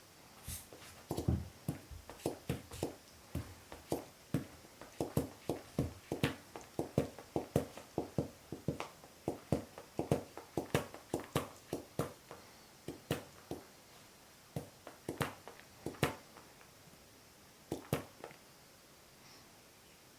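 Jack Russell Terrier chewing a tennis ball, its bites squeezing the ball so it gives a quick run of sharp 'peko peko' popping clicks, about two to three a second. The clicks thin out to a few scattered ones near the end.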